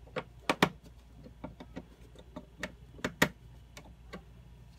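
Scattered light clicks and taps, about a dozen at uneven intervals, from hands handling wires and small parts at an inverter's control terminals, over a faint steady low hum.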